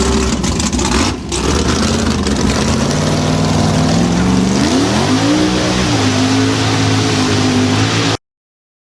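Motor vehicle engine revving under load over a loud rushing noise, its pitch climbing about four to five seconds in and then holding high; the sound cuts off abruptly near the end.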